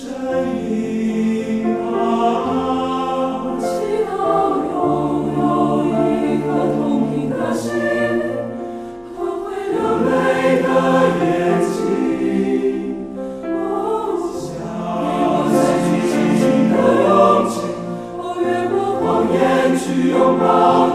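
Slow choral music: voices singing long held chords over a low sustained bass, swelling and easing in loudness.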